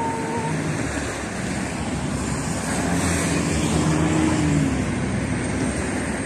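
Road traffic going by on the street: a steady noise of engines and tyres, with one vehicle's engine hum rising and falling about three to four seconds in.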